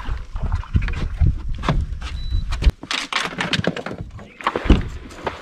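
Wind rumbling on the microphone, with irregular knocks, clicks and rustles from people moving and handling gear on the fiberglass boat deck.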